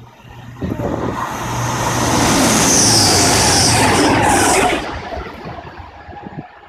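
A train passing at speed: the rush of wheel and air noise builds over about two seconds, holds loud with a hiss, then drops away sharply about five seconds in and fades.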